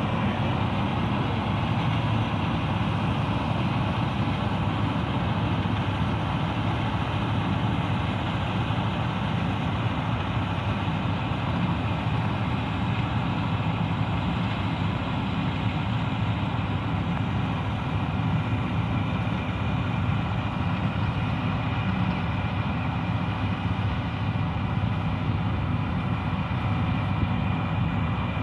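Diesel farm machinery, a combine harvester or its tractor, running steadily at work: a constant, even engine drone with a faint steady whine above it.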